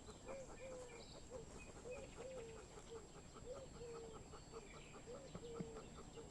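Young Pyrenean Mountain Dog whimpering faintly, a string of short whines about two or three a second.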